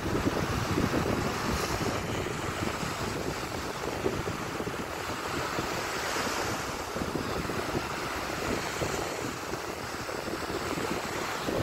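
Small Baltic Sea waves breaking and washing up onto a sandy shore, rising and falling in steady surges, with wind buffeting the microphone.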